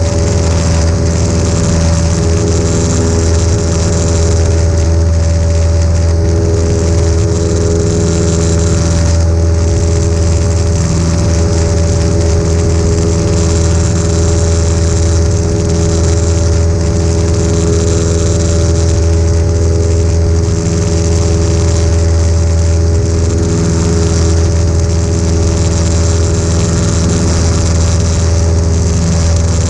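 A Cessna 172's piston engine and propeller running steadily in flight, heard from inside the cabin: a loud, even low hum with a hiss of air over it.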